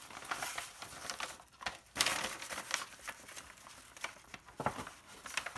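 Brown paper grocery-bag pages and cereal-box cardboard rustling and crinkling as they are handled, with a louder crackle about two seconds in.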